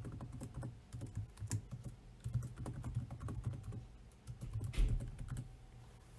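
Typing on a computer keyboard: a quick, uneven run of key clicks, with one heavier key press near the end, stopping about five and a half seconds in.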